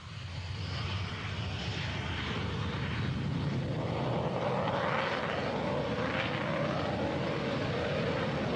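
Military jet aircraft's engine noise: a steady rush with a faint whine, fading in at the start and swelling slightly around the middle.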